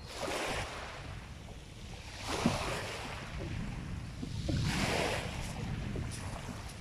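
Small waves washing in on a shingle beach, three swells of surf about two seconds apart, over a steady rumble of wind on the microphone.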